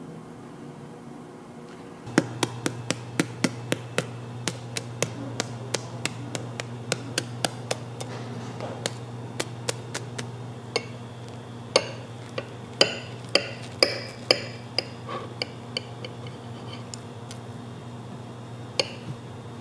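Kitchen utensils clicking and clinking: a quick run of sharp taps, about three or four a second, then louder ringing clinks of metal or glass, over a steady low hum that starts about two seconds in.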